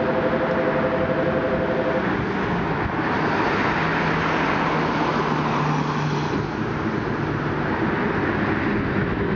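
Hankai Tramway Mo351-type streetcar standing at a stop and then starting to pull away, over a steady noisy background. A steady two-note tone sounds until about two seconds in, and a low hum runs from about four to six seconds.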